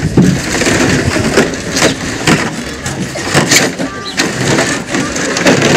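Empty plastic water jugs and jerrycans clattering, a series of irregular knocks as they are handled and set down against one another and the paving.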